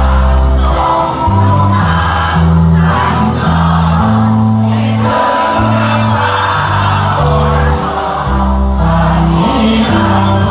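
Live band playing through a loud stage sound system: a lead vocalist sings over acoustic guitar, keyboard and a bass line of held notes that change every second or so, with the crowd singing along.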